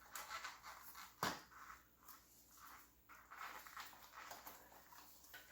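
Faint handling noises as a bicycle inner tube and tire are worked by hand: soft rubbing and rustling, with one sharp click about a second in.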